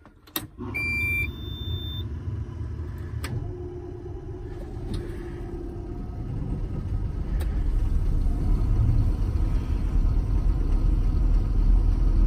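Caterpillar 322 log loader's diesel engine starting from cold after sitting for days, heard from inside the cab: a click and brief electronic beeps, then the engine catches and runs, getting a little louder toward the end.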